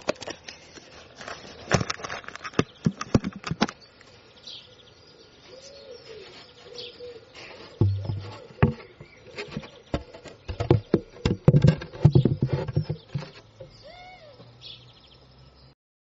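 Outdoor bankside recording of rustling and sharp irregular clicks, loudest in two bouts. Birds call in the background with short high chirps and a few low cooing notes.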